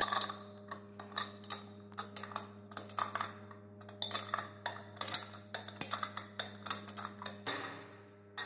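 Metal spanner clicking against the nut on a wash basin's wall-anchor bolt as it is worked tight: a run of short, irregular metallic ticks, several a second.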